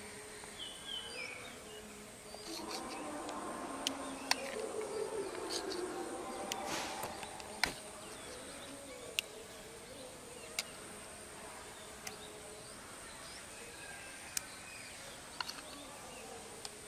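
A flying insect buzzing, wavering in pitch, for several seconds in the first half, over a faint steady high-pitched tone, with scattered sharp clicks throughout.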